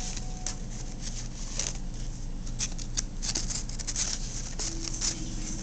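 Paper being handled: rolled paper tubes of a homemade toy shotgun rustling and crinkling, with many short, irregular clicks and scrapes.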